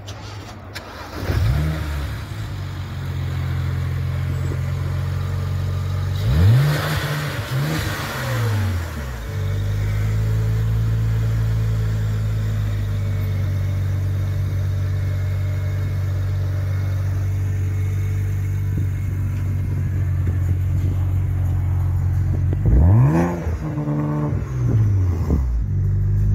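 BMW 335i's turbocharged straight-six, fitted with upgraded turbochargers, idling steadily and blipped twice about six seconds in, then a few more quick blips near the end.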